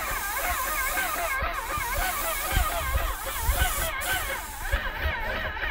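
Steady hiss of a spray gun spraying roof coating, with a wavering warble in the background and low buffeting rumbles.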